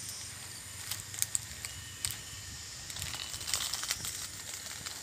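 Slow, careful footsteps crunching in dry leaf litter: a handful of short, sharp crackles, more of them near the end, over a steady high insect drone.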